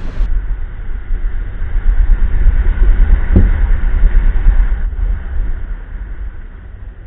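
Wind rushing over the microphone of a camera carried by a paraglider in flight: a loud low rumble that swells and eases. A single knock about three and a half seconds in.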